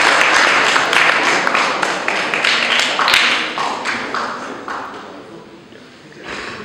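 Audience applause, thinning to a few scattered claps and fading out about five seconds in.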